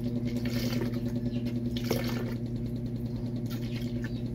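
Milk pouring from a carton in a thin stream into a plastic blender jar, a soft liquid trickle, over a steady low electrical hum. There is a light tap about two seconds in.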